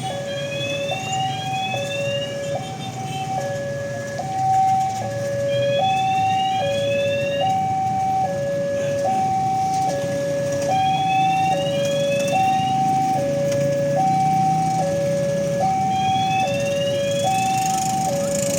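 Electronic two-tone railway level-crossing alarm sounding, alternating between a higher and a lower note about every three quarters of a second. A short run of rising chirps recurs about every five seconds over it.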